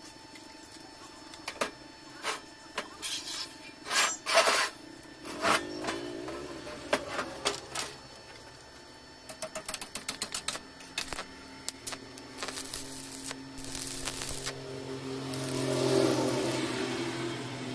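Steel pieces clanking and knocking against each other and the steel workbench as a frame is set in place, with a quick run of light clicks midway. Near the end a stick-welding arc crackles and hisses as an electrode tacks a corner of the frame.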